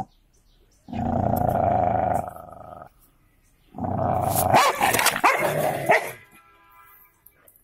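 Two dogs, a yellow Labrador retriever and a black cocker spaniel, growling at each other in a squabble over a bag. First comes one sustained growl of over a second. About four seconds in, a louder, rougher bout of snarling and barking follows as they scuffle.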